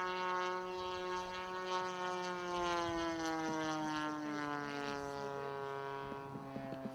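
Engine and propeller of a radio-controlled Focke-Wulf 190 model plane droning in flight, its pitch falling slowly and steadily as it goes by and throttles back.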